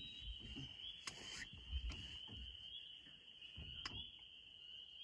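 Faint, steady high-pitched chorus of frogs calling over a lake at dusk, with a few soft knocks and low thumps.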